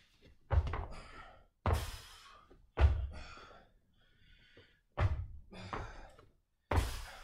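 Feet landing on a gym floor during single-leg hops and jumps: five heavy thuds with stuck landings, the first three about a second apart and the last two after a short pause.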